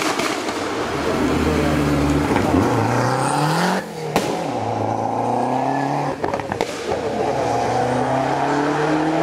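Lancia Delta Integrale's turbocharged four-cylinder engine revving hard under acceleration. Its pitch climbs, drops sharply just before four seconds in and builds again, then dips briefly with a few sharp pops about six and a half seconds in before climbing once more.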